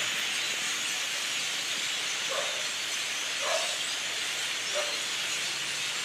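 A huge flock of birds calling together, a dense steady high-pitched chatter like a hiss, with three short, lower sounds rising out of it in the middle.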